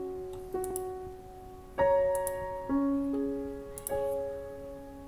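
Slow background piano music: notes and chords struck about once a second, each ringing on and fading away, the loudest about two seconds in.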